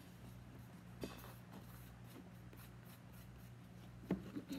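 Faint handling of a clear plastic container and Play-Doh: soft rustling and scraping, with two light knocks near the end, over a low steady hum.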